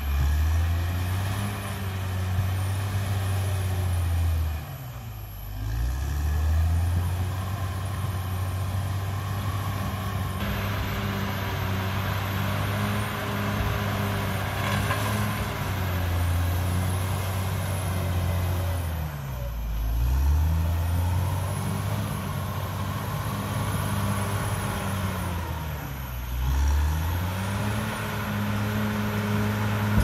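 CAT D6R XL bulldozer's diesel engine running under load, a steady low engine note that sags in pitch and picks back up three times, about five, nineteen and twenty-six seconds in.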